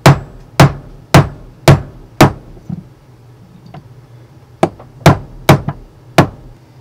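Small hammer tapping a pin punch, metal on metal, to drive the extractor roll pin back into a 9mm AR-15 bolt. Five sharp taps at about two a second, a pause of about two seconds, then four more taps.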